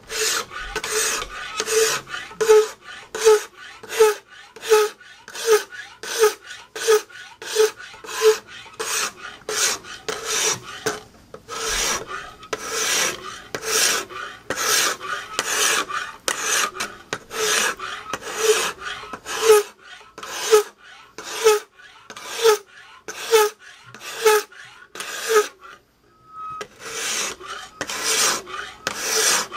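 Hand file rasping in steady back-and-forth strokes on a steel knife blade, about two strokes a second, each with a short ring. The strokes are cutting the blade's bevel, deepening the edge and plunge line. There are short pauses about 12 seconds in and again near 26 seconds.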